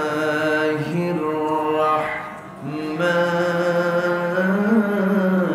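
A man's voice reciting the Quran in Arabic in long, drawn-out melodic notes that slide from pitch to pitch, with one short breath pause about two and a half seconds in.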